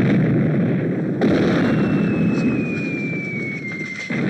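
Sound effects of artillery shelling: loud blasts, each trailing off in a long rumble, go off about a second in and again near the end. Between them a high whistle of an incoming shell slowly falls in pitch.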